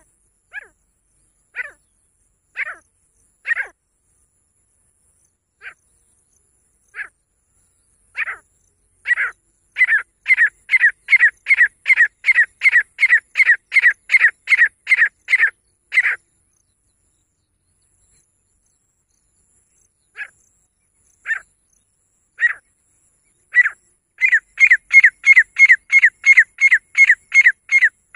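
Female grey francolin calling: sharp, high calls that start slow and spaced and speed up into a fast even run of about two to three calls a second. The run stops suddenly, then the calls start again slowly and speed up once more near the end.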